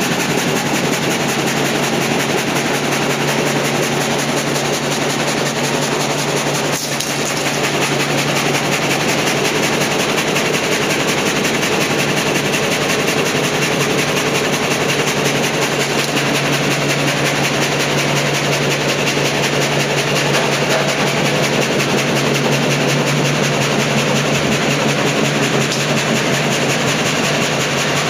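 Drozdowski WRP-58 vertical frame gang saw running and sawing a thick block of timber into boards: a loud, steady machine noise with a low hum underneath and a brief drop about seven seconds in.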